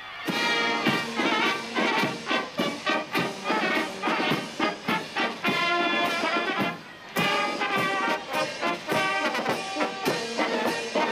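Military brass band playing a march, with trumpets, trombones and a bell lyre, breaking off briefly about seven seconds in.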